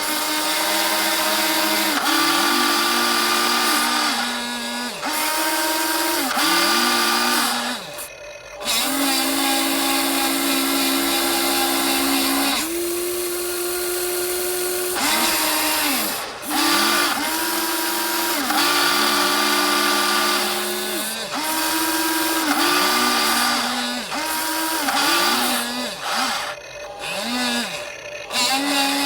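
Electric motors of a radio-controlled model excavator whining, starting and stopping every second or two with short rises and falls in pitch as the controls are worked, over a steady gear hiss.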